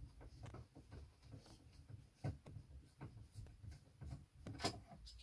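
Faint clicks and scrapes of hands working the plastic cable connectors inside an opened Philips VG-8235 MSX2 computer, with a sharper click near the end.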